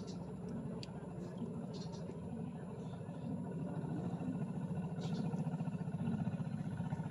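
A small engine running steadily, a low hum with a fast regular pulse that grows a little louder in the second half, with a few faint clicks.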